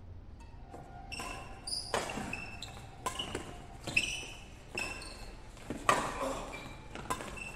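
Doubles badminton rally: rackets hit the shuttlecock with sharp smacks about once a second, six or seven times, each ringing on in the hall. Short high squeaks of court shoes come between the hits.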